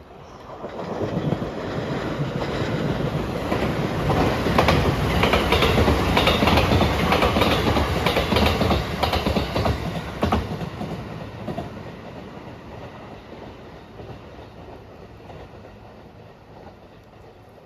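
Electric passenger train passing at speed, wheels clattering over the rail joints. It builds over the first few seconds, is loudest for about six seconds, drops off abruptly a little past the middle, then fades away.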